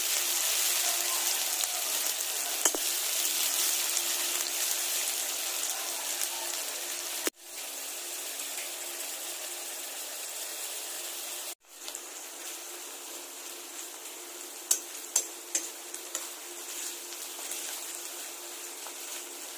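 Sliced onions sizzling as they fry in hot oil in a metal kadai, stirred with a steel spatula. The sizzle is steady, louder for the first seven seconds or so, with a few sharp clicks of the spatula against the pan around the middle.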